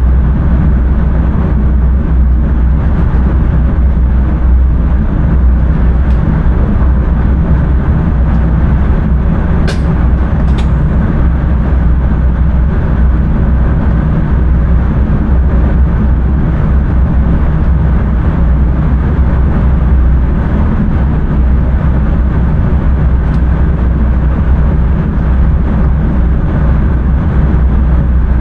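Passenger train running at speed, heard from the driver's cab: a loud, steady rumble of wheels on rails, with two sharp clicks about ten seconds in.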